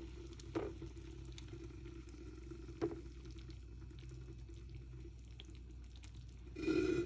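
Food cooking on a stovetop: faint crackling of an egg frying under a lid and a pot of water heating toward the boil, over a steady hum. Two small knocks early on, and a louder clatter near the end.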